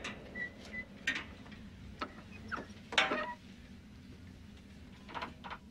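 Clicks and clanks from the metal lid of a top-loading washing machine being handled and lifted, the loudest clank with a short metallic ring about three seconds in, over a low steady hum.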